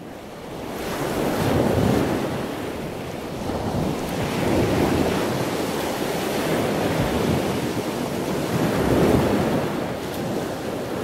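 Small waves washing onto a sandy shore: a steady rush of surf that swells and eases every few seconds, with wind buffeting the microphone. It fades in from silence at the start.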